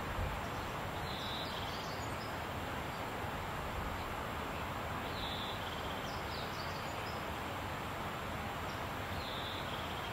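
Steady outdoor ambient noise, with a small bird singing a short high phrase three times, about every four seconds.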